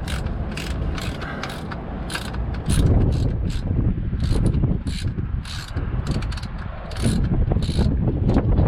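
3/8-inch ratchet wrench clicking in short, uneven strokes, about two clicks a second, as a transfer case plug is worked loose. A low rumble rises and falls underneath.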